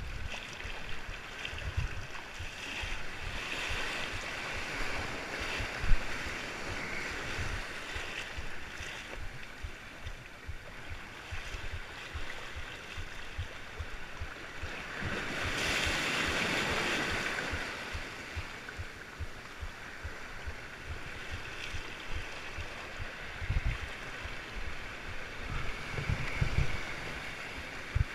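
Sea waves washing and sloshing against rocks at the water's edge, with wind buffeting the microphone and scattered low knocks from the camera being handled. A louder wash of surf swells up about halfway through.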